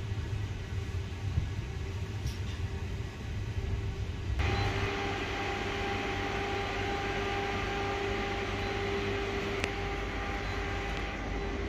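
Inside a regional train carriage: a low rumble, then after a sudden change about four seconds in, a steady hum made of several even tones over the train's running and ventilation noise.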